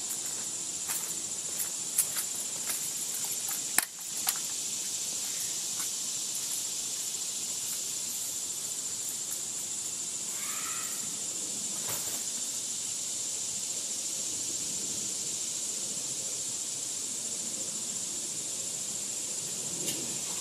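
Steady high hiss of outdoor background, with a few scattered clicks and knocks in the first four or five seconds and a short chirp about ten seconds in.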